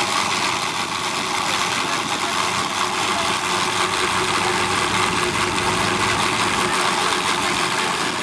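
Portable fire pump's engine running steadily at an even speed.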